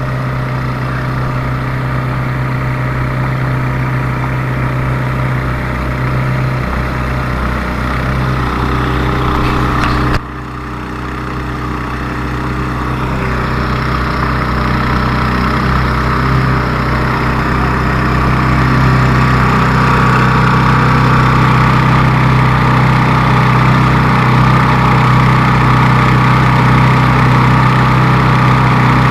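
A vehicle engine running steadily on a road test drive, with an abrupt break about ten seconds in, then growing louder and holding steady.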